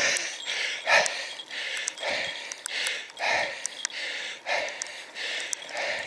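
A cyclist breathing hard and rhythmically while pedalling uphill, about one heavy exhale a second: steady climbing effort.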